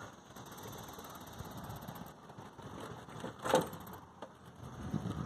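Faint outdoor background noise, a low steady rumble, with one brief louder noise about three and a half seconds in.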